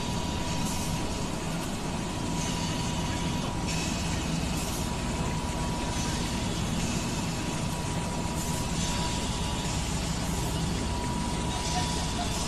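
Industrial machinery drone at a mine: a steady low hum with a faint thin whine, and hissing that rises and falls every few seconds.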